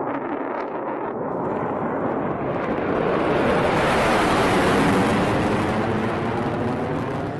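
F-35 fighter's jet engine roaring past in a flyby, the noise swelling to a peak about four to five seconds in and then fading.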